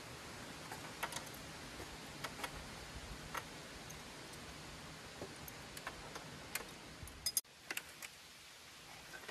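Scattered light clicks and taps from the insulated copper line set and its coil being handled, over a faint steady outdoor hiss. A quick cluster of clicks comes about seven seconds in, and then the background hiss drops off suddenly.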